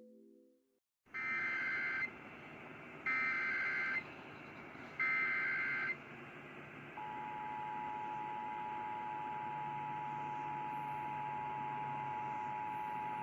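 Emergency Alert System activation for a severe thunderstorm warning: three bursts of the SAME data header, each about a second long and a second apart, then about seven seconds in the steady two-tone attention signal (853 and 960 Hz) begins, over a constant background hiss.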